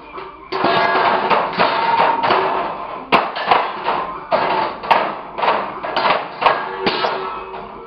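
Metal dog bowl shoved and pawed around the floor of a wire crate by a puppy: continual scraping clatter with metallic ringing, and a run of sharp knocks from about three seconds in.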